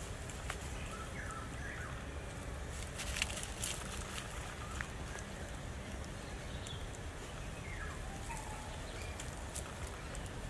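Outdoor ambience: steady wind rumble on the microphone, dry leaf litter crackling a few times about three to four seconds in, and a few faint short squeaky calls, one falling in pitch near the end.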